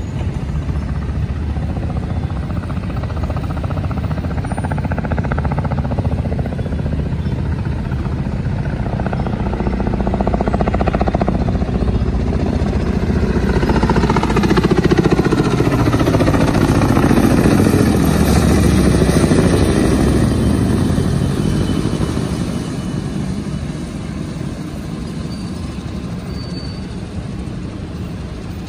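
Boeing Vertol 107-II tandem-rotor helicopter in flight on approach, rotor and turbine engine noise. It grows louder to a peak about halfway through as it passes closest, its whine falling in pitch, then fades as it moves away.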